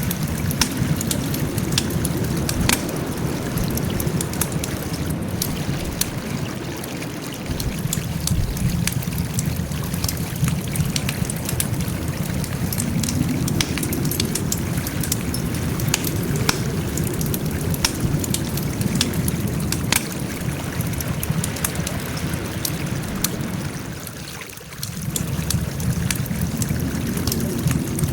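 Wood fire burning, with a steady low rush of flames and frequent sharp, irregular crackles and pops of burning wood. The level dips briefly near the end, then comes back.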